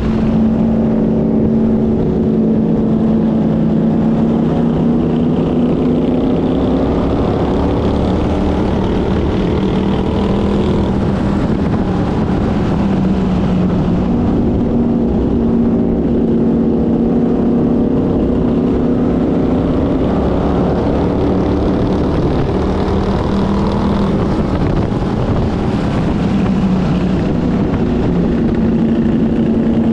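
Race car engine heard from an onboard camera, running hard at racing speed, its pitch easing down and climbing back up several times.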